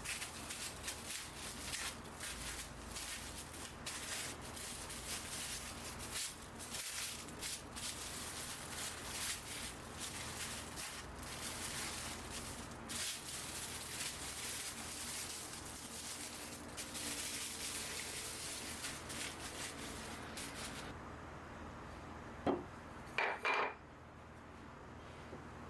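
A utensil scraping and clicking rapidly against a dish, as in mixing or scraping food in a bowl. It stops about three-quarters of the way through, and a few short clinks of crockery follow near the end.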